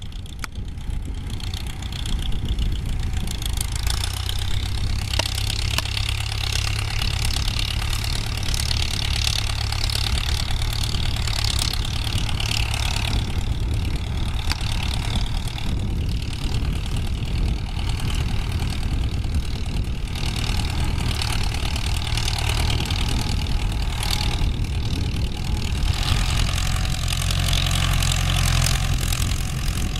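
Ford farm tractor's diesel engine running steadily under load as it pulls a disc plough through the soil. It grows a little louder near the end as the tractor comes close.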